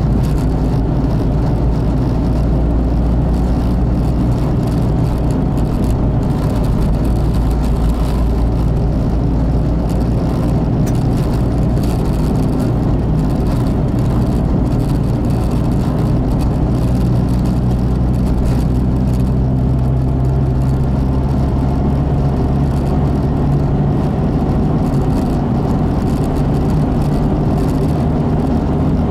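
A car driving steadily along a road, heard from on board: a continuous engine hum with road and tyre rumble, its pitch shifting slightly partway through as the revs change.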